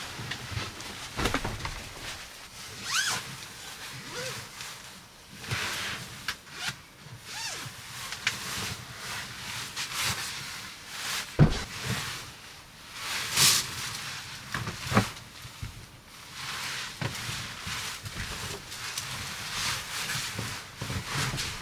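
Irregular rustles, clicks and knocks of camping gear being handled at close range, the loudest knocks about halfway through, over a steady hiss of rain.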